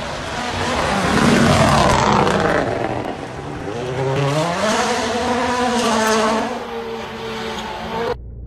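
2019 World Rally Cars at full speed on a gravel stage: first one passes close with a loud rush of engine and tyre noise, then another accelerates out of a bend, its turbocharged four-cylinder engine rising in pitch, holding high revs and dropping off. The sound cuts off suddenly near the end.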